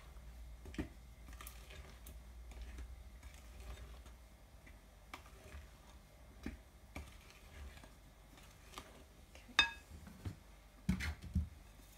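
A spoon knocking and tapping against a glass mixing bowl as thick brownie batter is stirred and folded. There is a louder ringing clink about ten seconds in, and a couple of dull knocks near the end.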